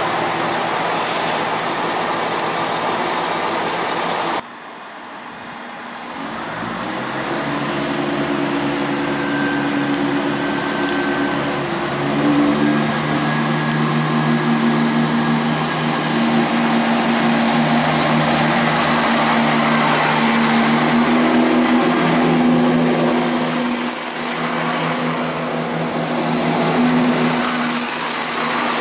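A Class 170 Turbostar diesel multiple unit's wheels clatter along the rails for the first few seconds. After a cut, the underfloor diesel engines of another Class 170 run with a steady drone that steps up in pitch as the unit powers away from the platform.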